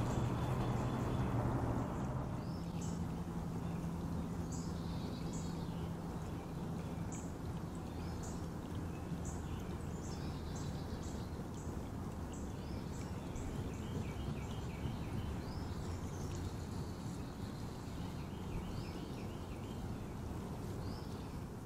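Shallow creek running over a gravel riffle, a steady rushing, with songbirds giving short, high notes again and again throughout.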